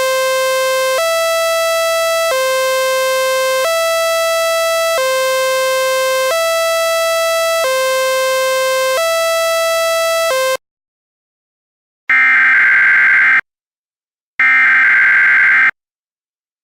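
Harsh electronic alert tone alternating between a low and a higher pitch about every one and a half seconds, stopping about ten seconds in. After a short silence come two screeching data bursts of about a second and a half each, the Emergency Alert System SAME header.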